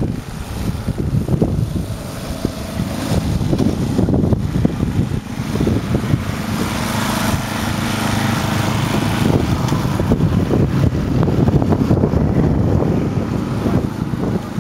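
An engine running steadily, its sound swelling in the middle, with wind buffeting the microphone.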